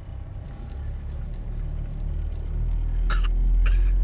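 Low rumble of a car moving slowly over a rural track, heard inside the cabin, growing louder from a little past halfway. Two short coughs come about three seconds in.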